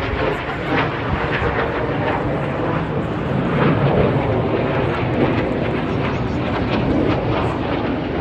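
Jet roar of a Red Arrows BAE Hawk T1's single turbofan engine as it flies a low display pass. The sound is steady and swells a little midway.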